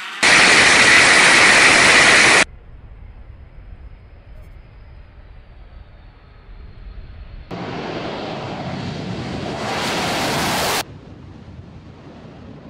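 Military jet engines at takeoff thrust, a steady rushing noise in spliced clips: very loud for about two seconds just after the start and cut off abruptly, quieter for several seconds, then loud again from a little past halfway, stepping up once and cutting off abruptly a couple of seconds before the end.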